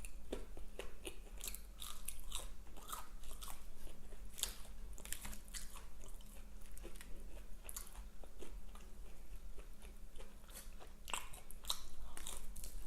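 A person chewing and crunching fried food close to the microphone, with irregular crisp bites and wet chewing.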